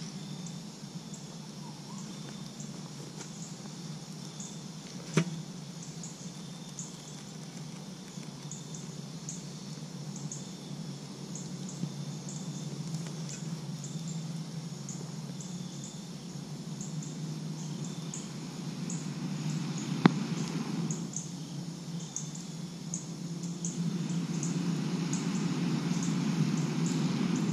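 Crickets chirping steadily, with two sharp metal knocks, about 5 and 20 seconds in. Near the end a steady rush of breath is blown through a collapsible metal blowpipe (pocket bellows) into the campfire to fan it up.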